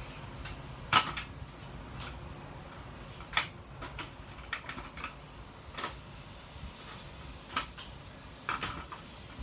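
Scattered light plastic clicks and knocks as LEGO robots and pieces are handled, picked up and set down on a toy arena floor, with the loudest knock about a second in.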